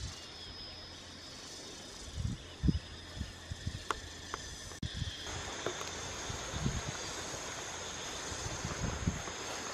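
Steady high-pitched insect calls over outdoor background noise, growing fuller about halfway through, with a few dull low thumps and rustles from hands working the soil.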